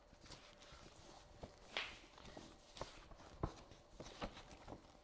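Faint, scattered taps and light knocks, about half a dozen at an uneven pace, with a brief rustle about two seconds in.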